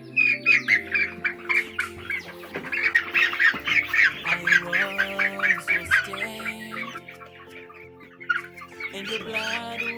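A flock of young poultry calling with many short, rapidly repeated squawks and clucks, thinning out after about six seconds, over background music with held chords.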